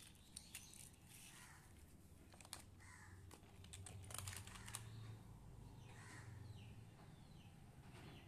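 Faint clicks and clatter of plastic toy cars and building blocks being handled, with a cluster of clicks about four to five seconds in.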